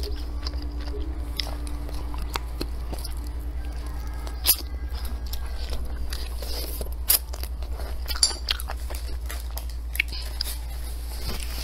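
Close-miked mouth sounds of someone chewing and eating food: soft wet chewing with many small clicks and a few sharper, louder clicks, over a steady low hum.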